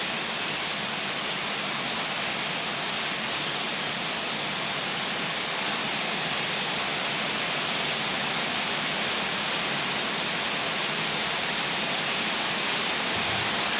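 Heavy storm rain falling in a steady, even hiss, growing slightly louder near the end.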